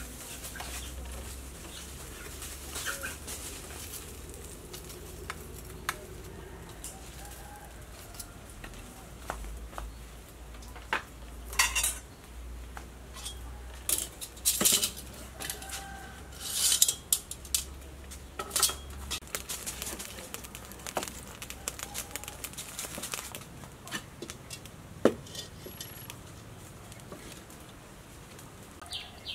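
Metal tongs clinking against a wire grill rack and a plate as grilled fish is lifted off, with scattered clatters and knocks of the rack being handled, busiest around the middle.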